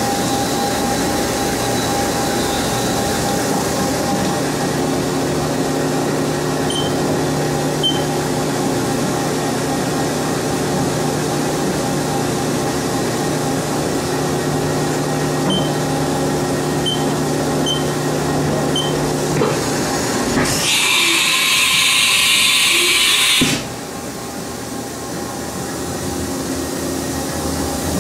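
Haas TM-1P CNC mill running with a steady mechanical hum made of several held tones, and a few short high beeps from its control keypad. About twenty seconds in, a loud hiss lasts about three seconds; the hum then drops out briefly and slowly comes back.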